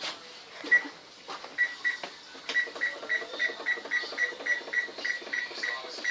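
Digital timer being set: its buttons are pressed over and over, each press giving a short high beep, about three beeps a second, with a few clicks of the keys.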